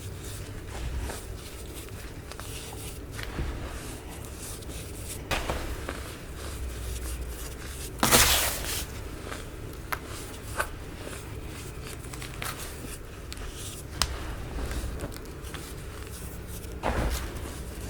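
Packed baking soda being crushed and crumbled by hand: scattered soft crunches and crackles, the longest and loudest about eight seconds in.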